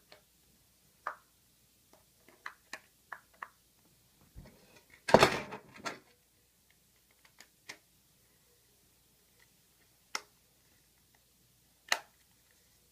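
Hands handling a smartphone and its black case: scattered small clicks and taps, with a louder scraping rustle about five seconds in.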